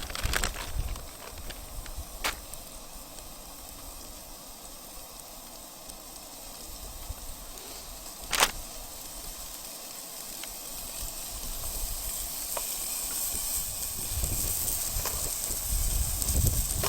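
Bacon sizzling in a pan on a hot camp stove, the hiss growing louder over the second half. A sharp click sounds about eight seconds in.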